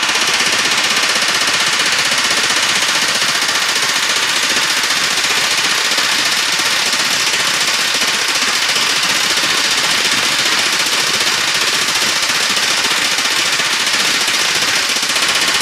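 Pneumatic riveting gun hammering in rapid, continuous blows on a hot steel rivet in a railway carriage's steel frame, knocking over and forming the rivet's domed head.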